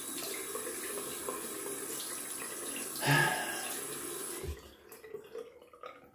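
Bathroom sink tap running steadily during a cold-water face rinse, with a brief louder sound about three seconds in; the tap is shut off about four and a half seconds in, leaving a few small wet ticks and rustles.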